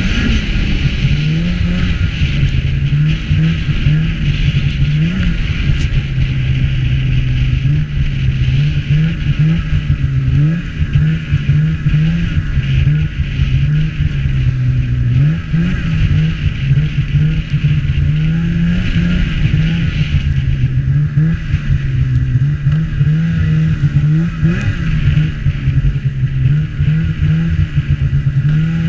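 Snowmobile engine running under way, its pitch rising and falling again and again as the throttle is worked, over a steady rushing noise.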